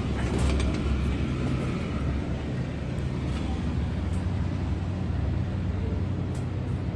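Large diesel engine running steadily, a low, even hum with no change in speed.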